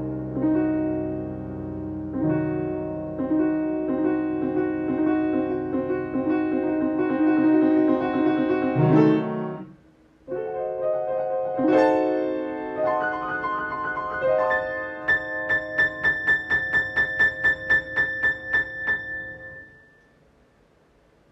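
Solo piano music: sustained chords and moving lines, a brief break about nine seconds in, then a quick repeated high note for several seconds that fades away to near silence near the end.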